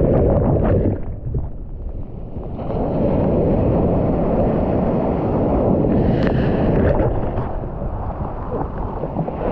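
Sea surf breaking and washing over a camera at the waterline of a pebble beach, foam rushing around the microphone with heavy wind-like rumble. The sound drops and dulls for a moment about a second in, then the rush of the waves returns.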